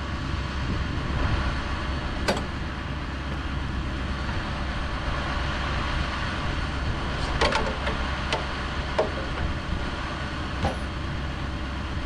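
An engine running steadily, with a few sharp knocks or clacks over it: one about two seconds in, a cluster around seven and a half seconds, and single ones near eight, nine and ten and a half seconds.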